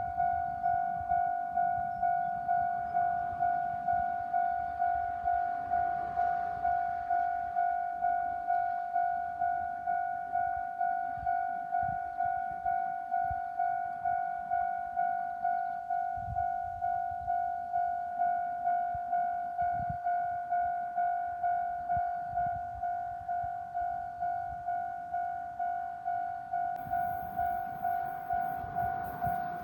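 Japanese railway level-crossing alarm ringing, a repeating electronic tone at about two strikes a second. Its speaker sounds cracked and distorted.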